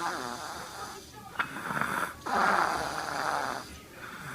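A young child's loud, raspy snoring sounds, about three long snores in a row.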